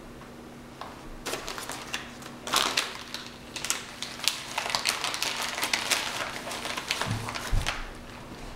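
Padded mailer envelope being handled and opened, its contents pulled out: crinkly paper rustling and crackling, with a couple of low thumps near the end.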